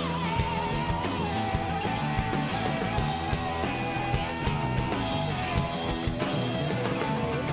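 Live rock band playing: electric guitar, bass and drums, with a sustained, wavering lead line held over the band.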